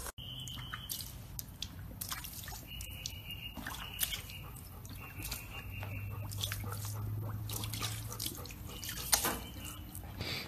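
Water splashing and dripping in a plastic paddling pool as two golden retrievers move about in it, with many small splashes and one sharper splash near the end. A thin high whine comes and goes a few times.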